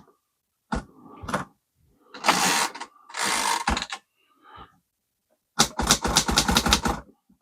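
Vintage portable typewriter's keys and typebars being worked by hand: a few separate clacks, two longer rattling, rubbing stretches, then a quick run of sharp clacks near the end. The typebars are being worked to spread penetrating oil through a gummed-up, tight typebar segment.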